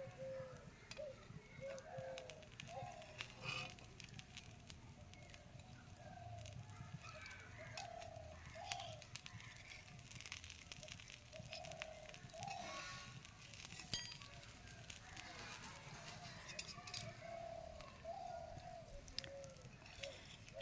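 Faint bird calls, short arched notes repeating over and over, with light clicks of a metal spatula against an iron griddle pan and one sharp tap about fourteen seconds in.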